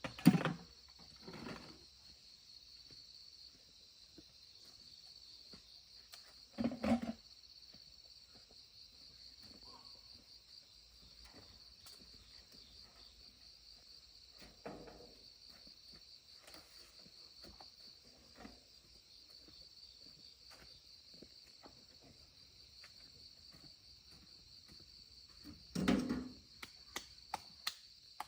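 Steady, high insect chirring, with a few short, louder low noises breaking in near the start, about seven seconds in and again near the end.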